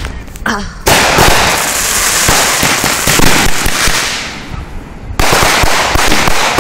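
Fireworks going off: a loud hissing rush of sparks lasting about three and a half seconds and fading out, then, about five seconds in, a sudden burst into dense, rapid crackling.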